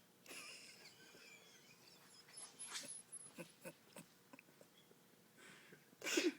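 Sleeping dog snoring and snuffling: a noisy breath at the start, a run of small clicks and smacks in the middle, and a louder short snort near the end.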